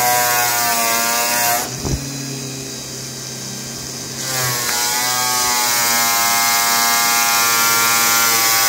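Coarse abrasive wheel spinning at about 3000 rpm with a fencing-jacket fabric sample pressed against it, giving a loud grinding hiss over a pitched whine. About two seconds in the fabric comes off the wheel and only the motor's lower hum is left. It is pressed back on about four seconds in.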